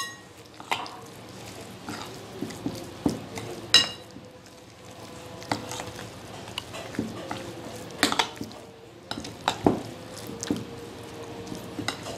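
Spoon stirring thick gram-flour pakora batter with sliced onion in a glass bowl: irregular wet scraping with scattered clinks of the spoon against the glass, one ringing clink about four seconds in.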